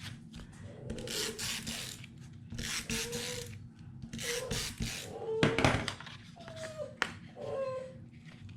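Paper pieces rustling and rubbing as they are handled, in several short bursts. In between come short, low calls from a pet bird, some sliding down in pitch.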